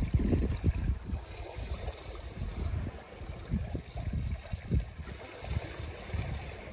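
Wind buffeting the microphone in uneven gusts over the wash of water along a small sailboat's hull under sail.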